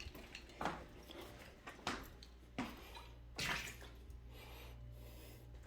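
Faint water splashes and drips: four short ones in the first three and a half seconds, the last a little longer, over a steady low hum.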